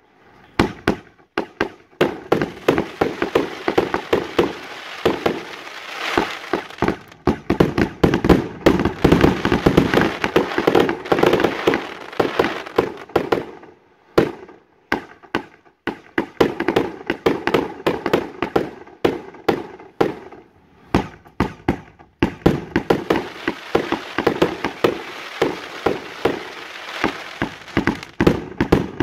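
Fireworks display: rapid runs of launch thumps and aerial bursts, several shots a second, broken by a few short lulls.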